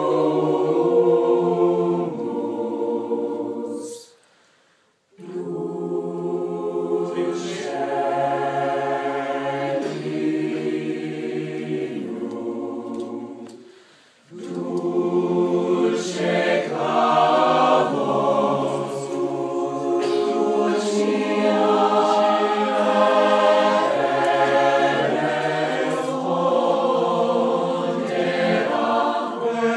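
High school chamber choir singing a cappella in sustained, held chords. The singing stops for about a second a few seconds in and pauses briefly again near the middle before the chords resume.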